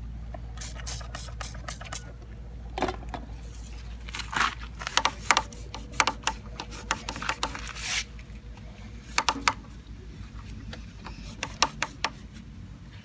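Cloth rubbing and scraping on a bare motorcycle handlebar as it is wiped clean, with repeated short clicks and taps from handling the bar and controls.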